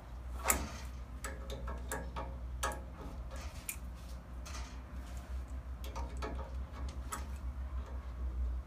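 Irregular small metallic clicks and taps as a drain valve on a central-heating pipe is worked open with a hand tool, the loudest about half a second in, over a steady low hum.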